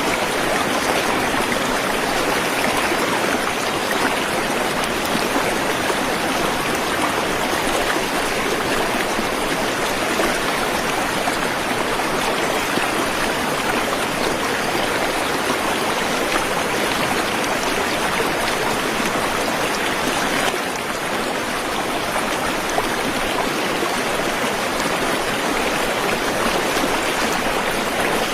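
Waterfall: water pouring and rushing in a steady, even noise, with a slight brief drop in level about twenty seconds in.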